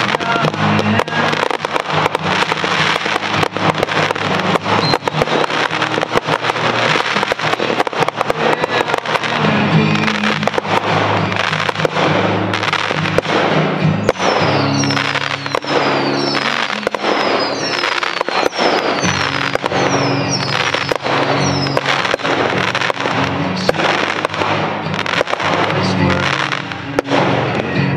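A rapid barrage of fireworks, with many bangs and crackles following close on one another, over a song with singing.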